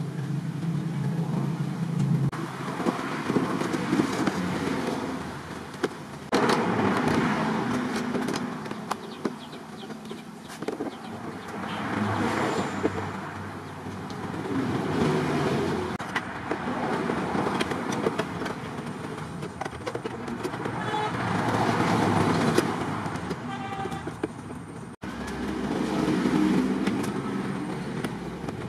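Road traffic passing, vehicles swelling and fading one after another, with a car horn toot. Scattered clicks and knocks from a plastic jug being handled.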